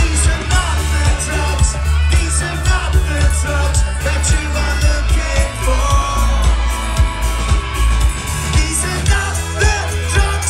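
Live band playing loud amplified music with heavy bass, drums on a steady beat, trumpet and trombone, and singing.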